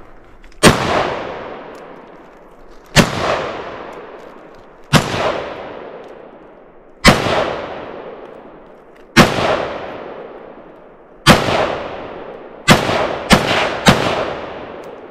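Ruger Mini-14 rifle firing .223 rounds, loud: nine shots, each followed by a fading echo. The first six come about two seconds apart, and the last three come in quick succession about half a second apart near the end.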